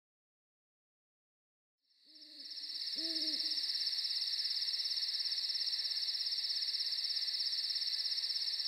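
Night-ambience sound effect: an owl hoots twice, about two and three seconds in, over a steady high-pitched cricket trill that starts with the first hoot and keeps going.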